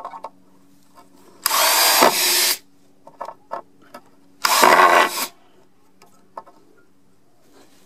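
RIDGID 18V cordless drill/driver at full trigger and maximum torque, driving a 2.5-inch drywall screw into wood in two bursts of about a second each, with a few small clicks between them.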